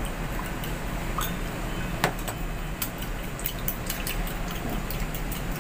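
Metal spoon clinking against a ceramic bowl while stirring a thin sauce: scattered light clicks, one sharper about two seconds in and more frequent through the second half, over a steady low hum.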